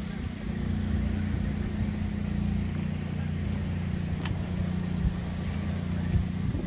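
Heavy truck's diesel engine idling steadily, with a faint click about four seconds in.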